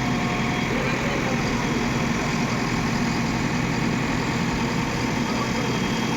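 Heavy diesel engine running at a steady idle.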